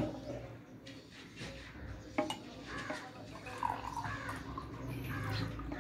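Water being poured back and forth between two drinking glasses, with a sharp clink of glass about two seconds in.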